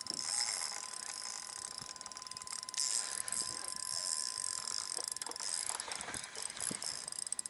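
Fishing reel being cranked to wind in line against a hooked fish: a steady mechanical whir with fast ratchet-like ticking.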